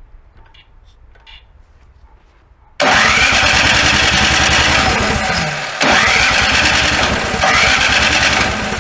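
Small snow blower engine being started: about three seconds in it kicks into loud, fast-pulsing running with a rising sweep, dips briefly near six seconds, then surges up twice more. The fuel-starved carburetor has just had its clogged emulsion tube cleaned.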